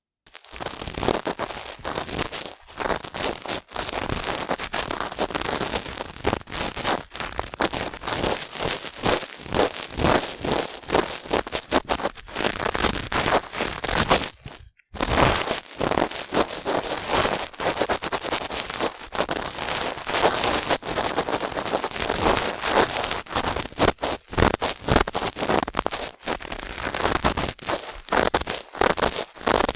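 Cotton swabs rubbing and scraping close against a binaural microphone's ear, a dense run of short scratchy, crackling strokes. The sound drops out for a moment about 15 seconds in.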